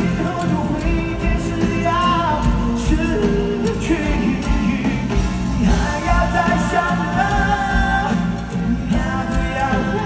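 Live pop concert: a band with drums and bass playing loudly under a melodic sung line.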